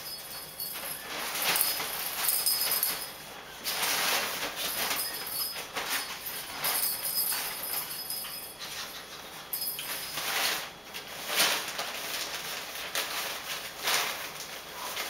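Maltese puppies scuffling and playing with a fabric play tunnel on a tile floor: rustling of the tunnel's fabric and scrabbling of paws and claws on the tiles, in irregular bursts.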